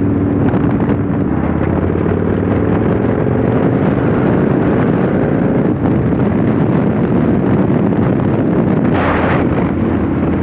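Motorcycle engine running at road speed under heavy wind noise on the microphone, its note rising for a few seconds as the bike speeds up.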